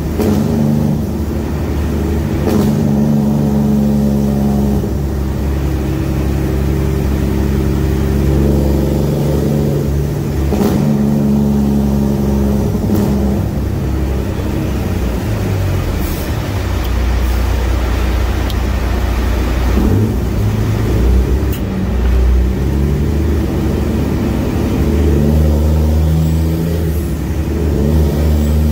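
Loud straight-piped Detroit Series 60 14-litre diesel of a 2006 Western Star semi truck running under way, heard from inside the cab in a tunnel. Its engine note shifts pitch several times.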